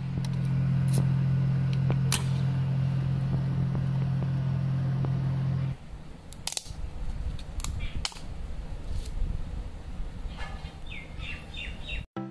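A 3D printer running with a steady low hum that cuts off abruptly about six seconds in. Then come scattered clicks and taps of a 3D-printed plastic bearing housing and a metal linear bearing being handled, with a few short high chirps near the end.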